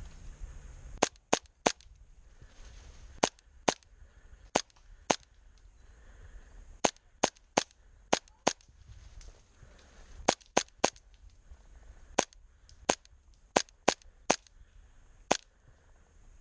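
Airsoft gun firing single shots: about twenty sharp pops in quick groups of two to five, with short pauses between the groups.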